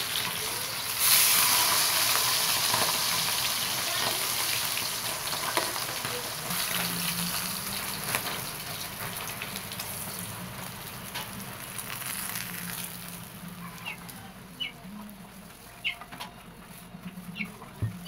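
Hot cooking oil sizzling in a wok around a whole fried milkfish (bangus) as it is lifted out. The sizzling is strongest over the first dozen seconds and dies down near the end.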